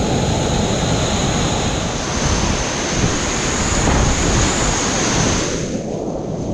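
Loud rushing whitewater of a river rapid, heard close to the microphone as a steady dense noise. The high hiss thins out about five and a half seconds in while the low rushing goes on.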